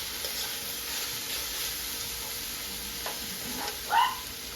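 Onion and carrots sizzling steadily as they fry in oil in a pan. Near the end a dog barks once, briefly, louder than the frying.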